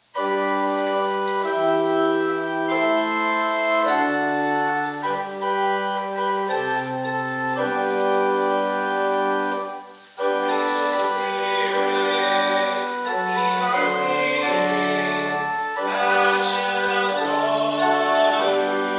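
Church pipe organ playing a hymn in sustained chords that change about every second. It stops briefly about halfway, then starts again with voices singing along.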